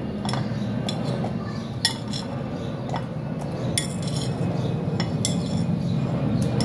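Onion chunks being pushed off a plate with a knife into a glass blender jar: scattered clinks and taps of the knife blade on the plate and of onion pieces dropping onto the glass, over a steady low hum.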